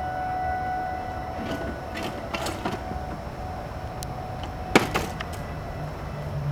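Outdoor city background: a steady low rumble with a faint, level tone held above it. A few sharp clicks or knocks sound, the loudest about five seconds in.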